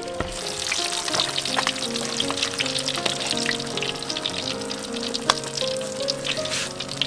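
Pieces of stingray frying in hot oil in a steel wok: a steady crackling sizzle that starts a moment in, over background music.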